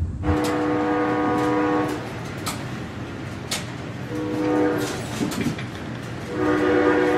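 Passenger train's horn blowing three times, a long blast, a short one and another long one, each a steady two-note chord, over the steady running noise of the train. A couple of sharp clicks come between the blasts.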